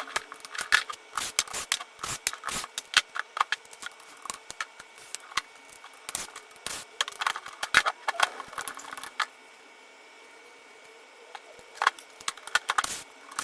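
Small metal tools and parts clicking, clinking and rattling on a workbench as a petrol RC car's engine is taken apart by hand. The clinks come in quick irregular clusters, with a pause of a second or two after the middle.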